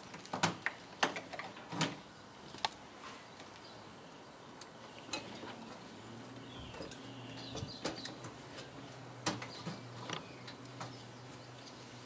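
Faint scattered clicks and small plastic knocks of hands undoing a tie wrap and pulling a fridge defrost sensor out of its plastic securing clip on the evaporator coil, with a couple of short squeaks around the middle. A faint low hum comes in about halfway.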